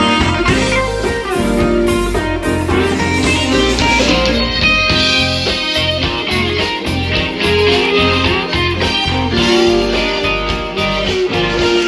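Live band music: a drum kit, electric bass guitar and keyboard playing steadily, with a guitar sound to the fore.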